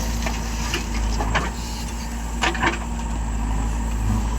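A heavy vehicle's engine running steadily at idle, with a few short knocks over it.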